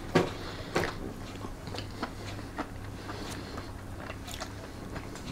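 Mouth chewing crunchy Cheetos-breaded boneless chicken wings: a couple of sharp crunches in the first second, then softer, scattered chewing crackles over a faint low hum.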